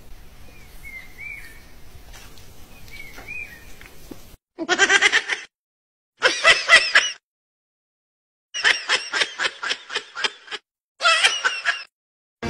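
A puppy whimpers softly a few times. Then a young kitten mews in four loud bursts of quick, high-pitched squeaky cries, about five cries a second, with dead silence between the bursts.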